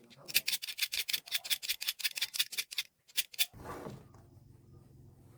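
Quick rasping strokes, about six a second, of a small craft piece being sanded or filed by hand, stopping after about three seconds. Then a falling whoosh and a low steady hum.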